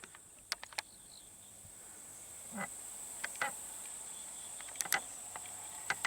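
Steady high-pitched chirring of late-summer field insects, with a few scattered faint clicks.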